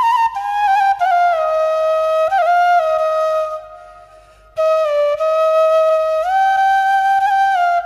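Solo flute playing a slow melody of long held notes with small ornamental turns. It breaks off for about a second midway, then resumes.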